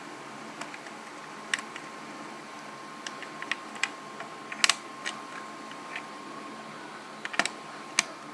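Irregular sharp clicks and taps of hard plastic and small tools as an Xbox 360 controller is worked on for disassembly, unscrewed with a T8 screwdriver, with the loudest clicks coming in two small clusters around the middle and near the end.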